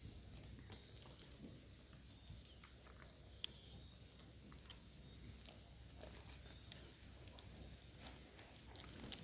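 Faint chewing of softened chocolate: scattered small wet mouth clicks over a low steady hum, with a few sharper clicks about three and a half seconds in, about a second later, and near the end.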